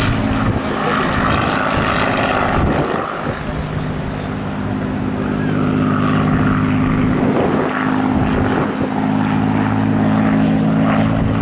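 Supermarine Spitfire's V12 piston engine and propeller droning steadily in flight, dipping briefly about three seconds in.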